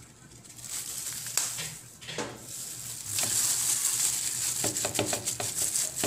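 Thin plastic glove crinkling and rustling as a hand rubs salt and pepper into a raw boneless milkfish on a plate. It starts as scattered crackles and becomes a dense, continuous crinkling about three seconds in.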